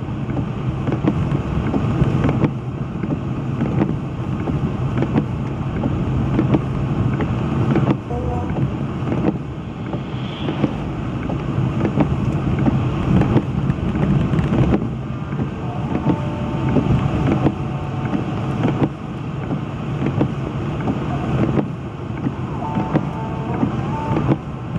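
Inside a car driving on a snow-covered road: steady engine and road rumble with frequent small knocks and clicks.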